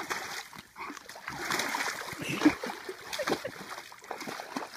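Water splashing and sloshing as a dog wades through a shallow stream with a stick in its mouth, irregular splashes throughout, the loudest about halfway through.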